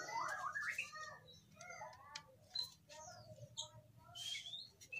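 Faint bird chirps and short whistled calls, one gliding up in pitch near the end, with a few light clicks.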